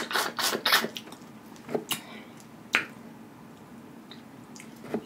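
Close-miked eating of boiled crawfish: a quick run of wet mouth smacks and shell crackles in the first second, then a few single wet clicks spaced out, as the juicy shell is cracked and sucked.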